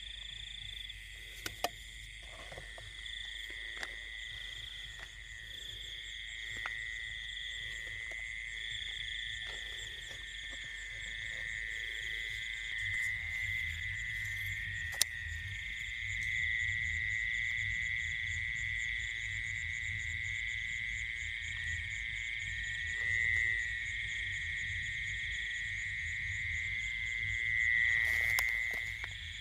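Night chorus of frogs and insects: a dense, steady trilling with a higher, rapidly pulsing insect note above it. A few sharp clicks sound over the top, one about a second and a half in and one around halfway.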